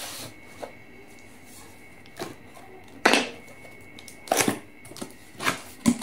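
Cardboard box being cut open with a knife and its flaps pulled open: a string of separate scrapes and rustles of card, the loudest about three seconds in, with a cluster of them around four and a half seconds.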